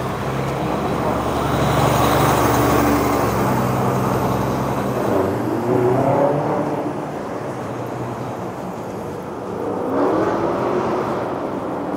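City street traffic: a heavy vehicle's engine running low and steady, loudest about two seconds in, fading out around five seconds in and leaving a quieter traffic hum.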